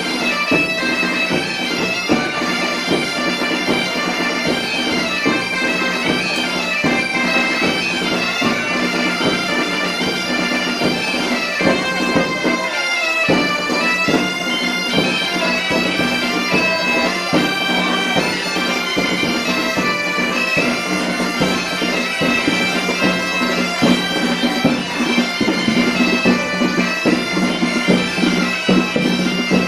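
Galician bagpipes (gaita) playing a tune over a steady drone, with a beat of sharp strikes underneath and a brief break about thirteen seconds in.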